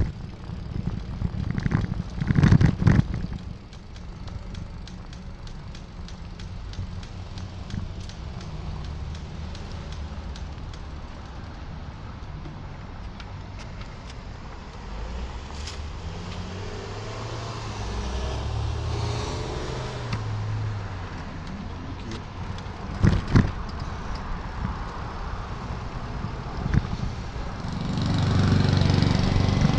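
Traffic heard from a moving bicycle, with a steady wind rumble on the microphone. A motor vehicle's engine passes about halfway through. There are sharp bumps or gusts near the start and about three-quarters of the way in, and the traffic noise swells near the end.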